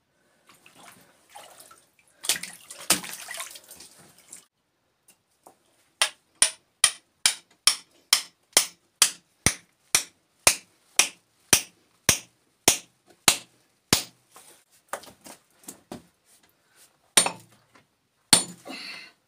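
Hammer striking a steel rock chisel driven into a stone to split it: a steady run of sharp metallic blows about two a second, then slower, lighter taps and a couple of heavier knocks near the end. Before the hammering, a couple of seconds of scraping and splashing in muddy water.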